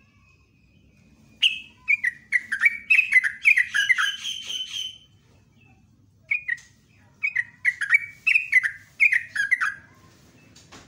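Yellow-vented bulbul singing its bubbling chattering song: two quick runs of loud, falling notes, each lasting a few seconds, with a short pause between them.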